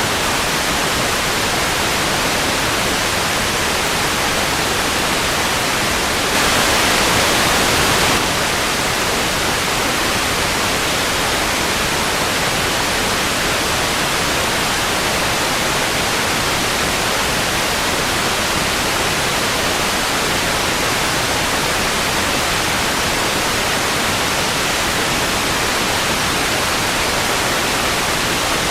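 Television static: a steady, even hiss of white noise, briefly louder and brighter for about two seconds some six seconds in.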